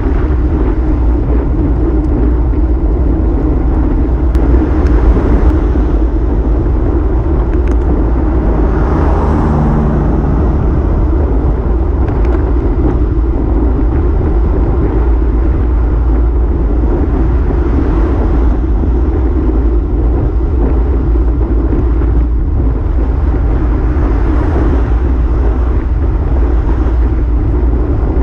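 Steady wind noise buffeting the microphone of a camera mounted on a moving road bike, with the deep rumble loudest. A passing car adds a brief swell about nine seconds in.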